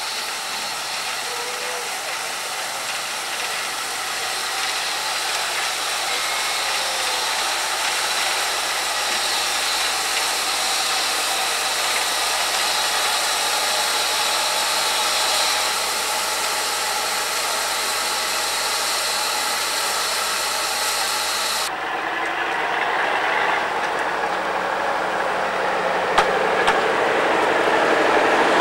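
Steam tank locomotive standing with steam blowing off in a steady hiss. About three-quarters of the way through, the sound switches abruptly to a diesel railcar running past close by, getting louder toward the end, with a couple of sharp clicks.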